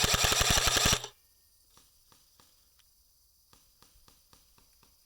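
Airsoft rifle firing a full-auto burst at about ten shots a second over a steady motor hum, cutting off about a second in; a few faint scattered clicks follow.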